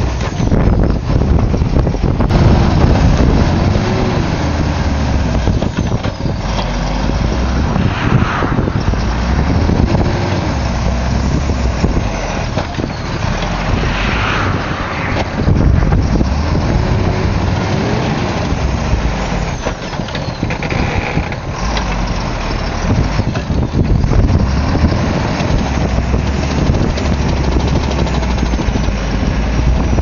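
Loaded logging truck's diesel engine revving up and down again and again as it labours under load through deep mud, over a steady low rumble.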